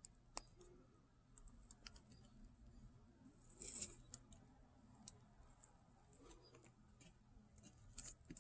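Near silence broken by faint scattered clicks and one brief rustle a little before halfway, from the plastic nozzle of a small resin bottle being squeezed and worked along a windshield crack.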